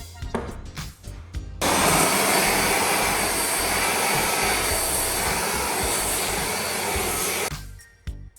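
A loud, steady hissing noise starts suddenly about a second and a half in and cuts off near the end, over background music with a beat.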